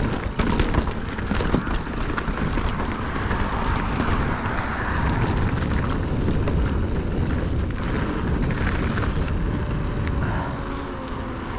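Wind buffeting the microphone and tyres rolling over a dirt trail as a Specialized Stumpjumper mountain bike is ridden, with sharp clicks and rattles from rough ground in the first couple of seconds.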